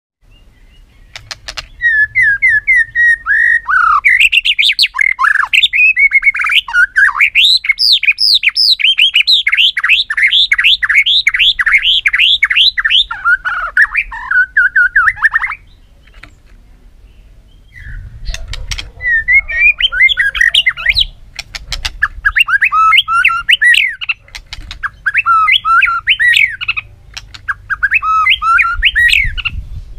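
White-rumped shama singing its loud competitive song: a long, fast run of varied whistled notes, then, after a pause of about two seconds, a string of shorter bursts.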